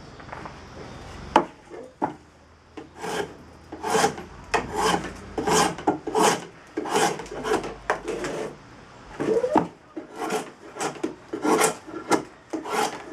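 Drawknife shaving green black locust: a steady run of short scraping strokes, a little more than one a second, as the blade slices diagonally through the wood. A single sharp knock comes about a second in.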